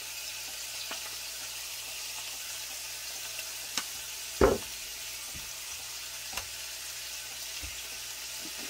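Crappie fillets frying skin side down in a cast-iron skillet, a steady sizzle, with a few light clicks and one louder thump about halfway through.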